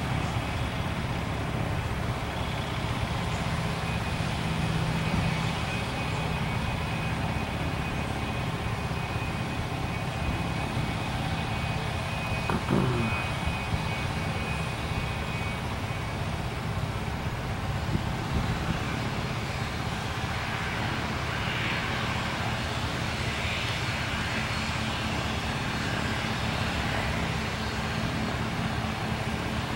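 Cessna 750 Citation X's twin Rolls-Royce AE 3007 turbofans running at taxi power as the business jet taxis: a steady jet rumble and hiss with a thin whine over it.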